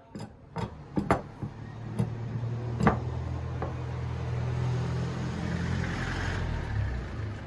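A few sharp knocks in the first few seconds, then a steady low hum like a small motor running.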